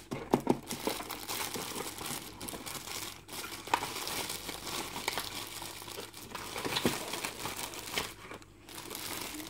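Clear plastic bag crinkling and rustling as hands handle the wrapped gimbal carry case, with a few sharp clicks among the rustle.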